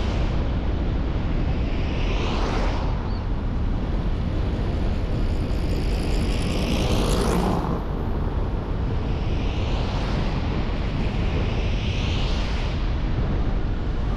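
A car driving along a town street: a steady low rumble of engine and tyres on the road. About four swishes swell and fade over it, the loudest about seven seconds in.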